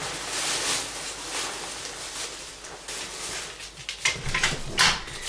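Rustling and shuffling of a person and a dog moving about close by, clothing rustling, with a few light knocks and clicks near the end. No howling.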